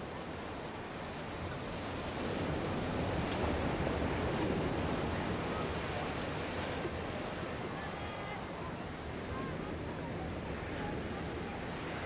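Ocean surf washing onto a beach, a steady rushing that swells louder a few seconds in and then eases off.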